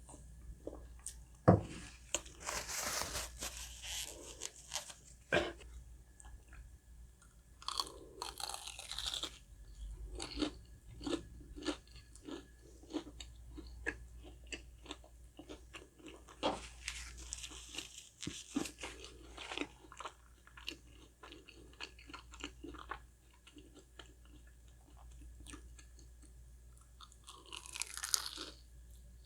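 A person chewing a crispy, fried, breaded croquette, with several bursts of loud crunching and lots of small chewing clicks between them.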